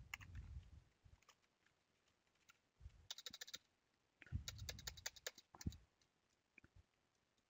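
Faint computer-keyboard typing: quick runs of keystroke clicks about three seconds in and again from about four and a half to nearly six seconds, with low muffled thumps near the start and around four and a half seconds.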